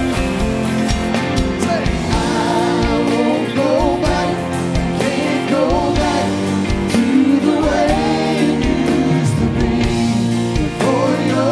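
Contemporary Christian song: a sung lead vocal over a steady drum beat and instruments.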